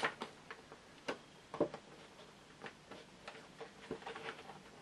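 Irregular clicks, taps and scuffs of a doll's packaging being handled as the tabs holding the doll inside the box are worked loose.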